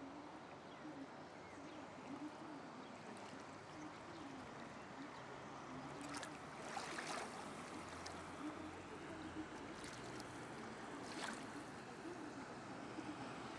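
River water rushing and splashing along a canoe, with a few brief, sharper splashes midway and near the end.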